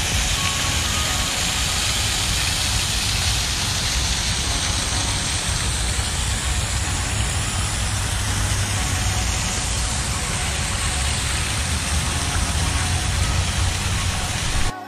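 Steady outdoor rushing noise with a low rumble, unchanging, that cuts off abruptly near the end.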